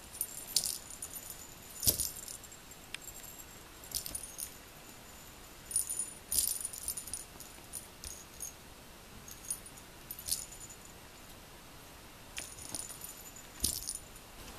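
Short bursts of small metallic jingling, about ten times at irregular intervals, as a cat bats at a dangling toy mouse. Twice, about two seconds in and near the end, a soft thump comes with the jingle.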